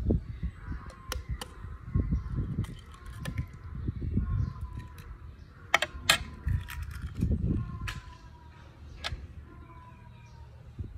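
Eggs being cracked into a plastic jug: sharp clicks and taps of shell on plastic, several times, with dull low knocks of handling in between.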